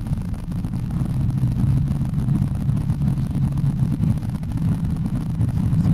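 Car driving along a road, heard from inside the cabin: a steady low rumble of engine and road noise with a faint hum.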